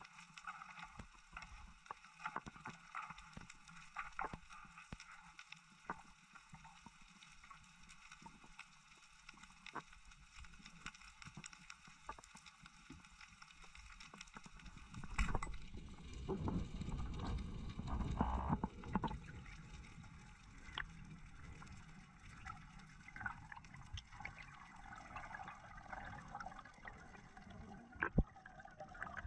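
Underwater sound picked up through a dive camera's housing: scattered clicks and crackles. About fifteen seconds in comes a sharp knock, then several seconds of heavy low rumbling and thumping as a speared conger eel struggles in a cloud of silt. A second sharp knock comes near the end.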